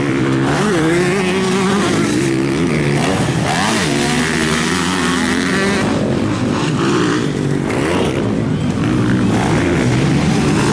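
Several motocross bikes racing, their engines revving up and down with the throttle, the pitches of more than one bike rising and falling and overlapping.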